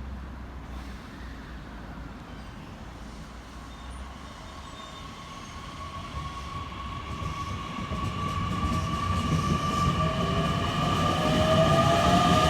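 JR Kyushu 813 series electric train growing steadily louder, its traction motors whining with several tones that rise slowly in pitch from about four seconds in, over a growing low rumble: the train is picking up speed.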